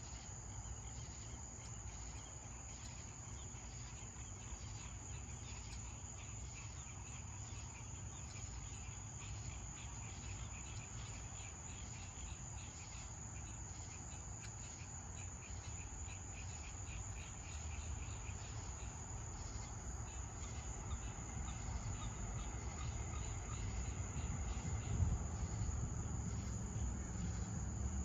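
Crickets and other night insects chirping and trilling steadily, a high continuous trill over a faster pulsed chirping. A low rumble runs underneath and grows louder toward the end.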